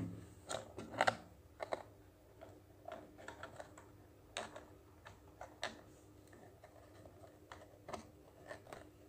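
Irregular light clicks and taps of a hand handling a plastic-cup candy dispenser close to the microphone, a dozen or so, loudest about a second in.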